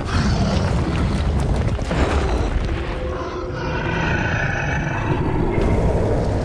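Film sound effects for a fight between giant rock creatures: heavy booms and deep rumbling of crashing stone, with music underneath.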